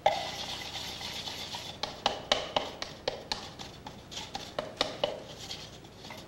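Painting tools being handled: a steady scratchy scraping, with a quick run of sharp taps and clicks, several a second, between about two and five seconds in.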